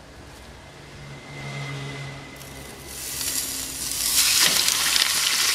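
A sous-vide ribeye steak, laid into a hot oiled stainless-steel frying pan on a gas grill for searing, sizzling. The sizzle swells about three seconds in and is loud and steady a second later; before that there is only a faint low hum.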